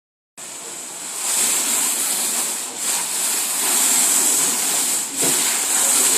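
Sea-wave sound effect: a steady rushing, hissing surf noise that cuts in abruptly about half a second in and swells, with two brief dips.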